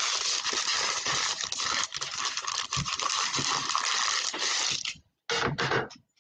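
Foil trading-card pack wrappers being crumpled in the hands: a dense crinkling crackle that cuts off about five seconds in, followed by a brief rustle near the end.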